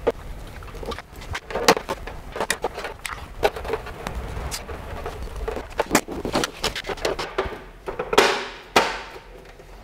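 Handling noise from fitting a wall-mounted Wi-Fi access point: scattered small clicks, taps and plastic knocks as the box and its cables are worked by hand. A longer scraping rub comes just after eight seconds in, as the front cover goes on.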